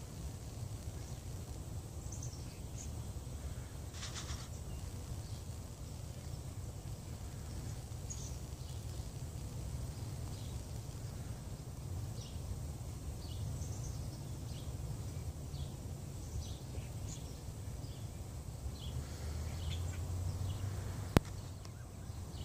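Outdoor ambience: a steady low rumble on the microphone with faint, scattered bird chirps, and one sharp click near the end.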